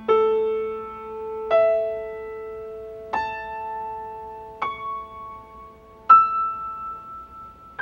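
Piano playing the harmonic series of A 220 as single notes one at a time, each higher than the last: A 440, E 660, A 880, C♯ 1100 and E 1320. A new note is struck about every second and a half, and each is left ringing under the next.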